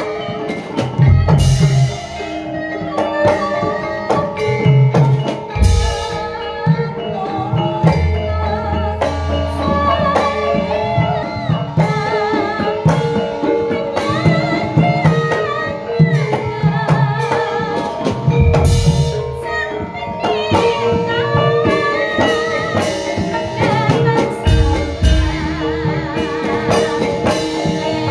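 Javanese gamelan music: held metallophone notes and irregular kendang drum strokes, with a sindhen singing a wavering, ornamented melody over them.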